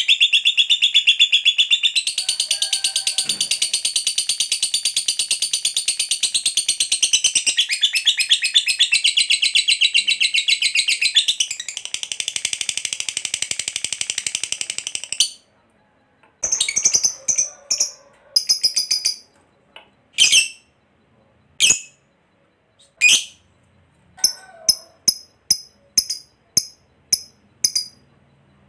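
Fischer's lovebird giving its long 'ngekek' chatter: a loud, very fast unbroken trill for about fifteen seconds. After a short pause it follows with a string of separate sharp chirps. A long ngekek like this is the prized song of a fighter lovebird.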